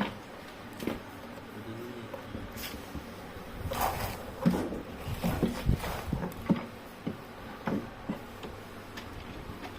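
Irregular knocks, clicks and rustles of things being handled during an unboxing, likely the wooden temple and its packaging. A sharp knock comes at the very start, and a busier run of knocks follows from about four to seven seconds in.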